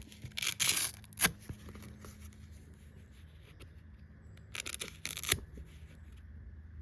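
Short rasps of a hook-and-loop sanding disc being handled and pressed onto a random orbit sander's pad, in two clusters about four seconds apart, with one sharp click between them.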